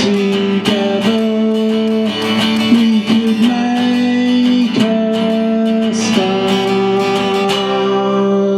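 Solo guitar playing an instrumental intro: strummed chords left to ring with held notes, the chord changing every second or two.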